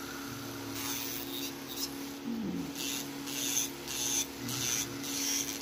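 Filing an acrylic nail: rasping strokes that come about twice a second in the second half, over a steady low hum.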